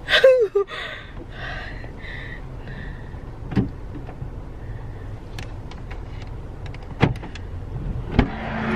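Inside a parked car: a steady low hum broken by a few sharp clicks and knocks. Just before the end a louder click is followed by a rise in outside noise, as when a car door opens.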